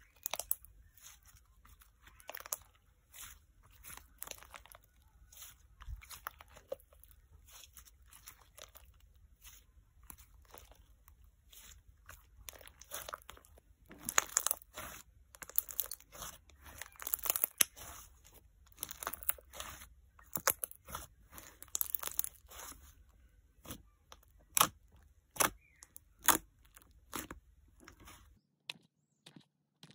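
Pink clay-textured slime being kneaded and squeezed by hand, giving many small sticky crackles and air-bubble pops that grow thick and loud about halfway through. Near the end these give way to fewer, sharper single pops as fingers press into the slime.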